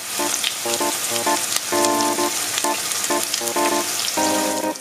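Chopped onion, carrot and green pepper sizzling as they sauté in oil in a pan: a steady hiss with small pops. Background music of short repeated instrumental notes plays over it.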